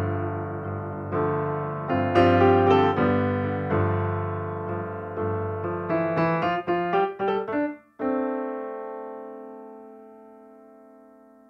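Solo piano music: struck notes and chords, a quick run of notes, then a long held chord slowly fading away near the end.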